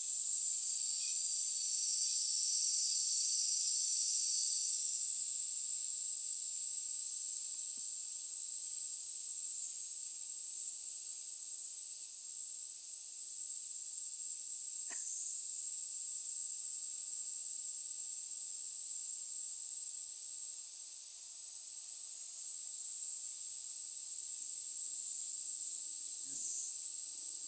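Steady, shrill insect chorus, like crickets or cicadas, loudest in the first few seconds, with one faint click about halfway through.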